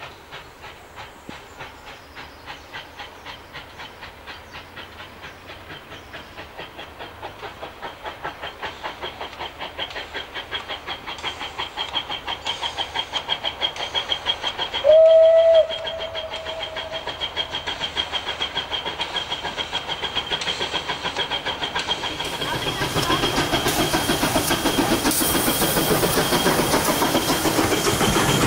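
Class 423 steam tank locomotive 423.0145 approaching under steam, its exhaust beats growing steadily louder. About halfway it gives one short whistle blast. Near the end the noise of the oncoming train swells sharply.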